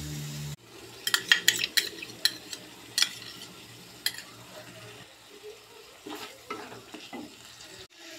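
Wooden spatula stirring and scraping thick masala with curd in a non-stick kadai over a faint sizzle. A quick run of sharp knocks and clicks comes in the first few seconds, then softer scraping.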